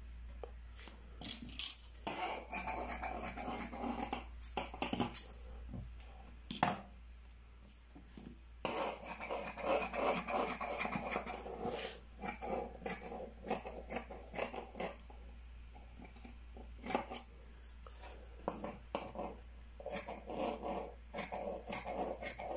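Scissors cutting out a sleeve pattern: spells of snipping and rustling with sharp clicks of the blades, separated by quieter pauses.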